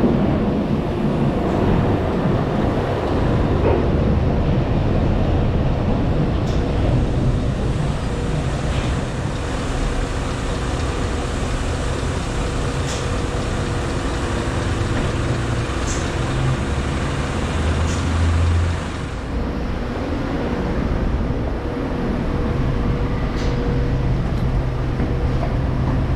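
Scania S650 V8 truck engine running steadily at low speed as the loaded cement tanker rolls slowly forward, with tyre and chassis noise close by. A handful of brief sharp clicks or hisses come through, and the noise drops a little about two-thirds of the way in.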